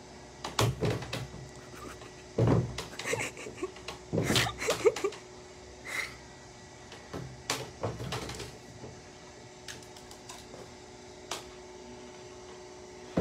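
Knocks and thuds on a wooden door as a kitten jumps and paws at a wand toy against it: a dozen or so irregular hits, most in the first few seconds, then sparser.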